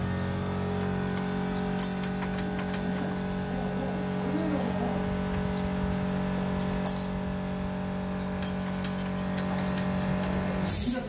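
A steady mechanical hum that cuts off suddenly near the end, with two sharp metal clinks of a wrench on the scooter's parts, one a couple of seconds in and one about halfway through.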